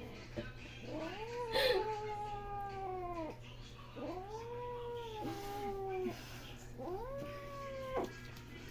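Female cats caterwauling in a fight: three long drawn-out yowls, each rising and then slowly sinking in pitch.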